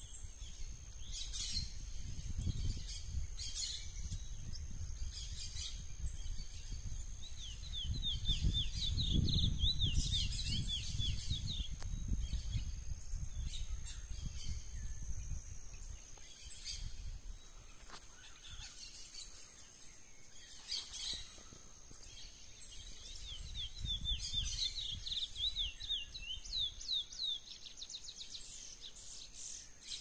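Wild curió (chestnut-bellied seed finch) singing its wild 'mateiro' song: short high chirps throughout, with two runs of quick repeated notes, about eight seconds in and again about 24 seconds in.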